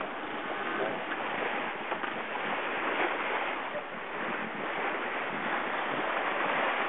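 Sea water rushing and splashing past the hull of a sailing yacht under way, with wind on the microphone: a steady, unbroken wash of noise.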